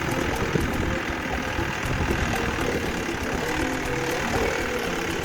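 Tractor engine running steadily while it pulls a plough through a field.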